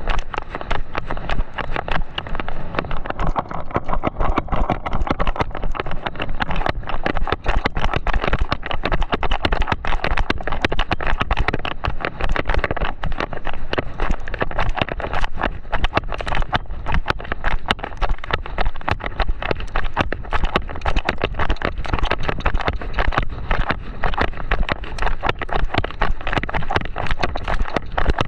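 A horse running fast on sand, heard from the rider's chest: a rapid, continuous patter of hoofbeats with a steady low rumble of wind on the microphone beneath.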